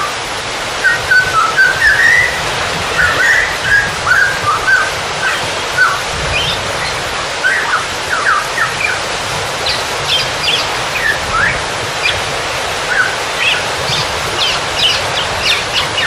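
Songbirds chirping and whistling in many short, quick calls over a steady rush of water. The calls grow busier and higher-pitched near the end.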